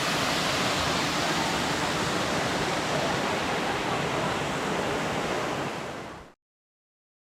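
Waterfall pouring: a steady rushing of falling water that fades out quickly about six seconds in.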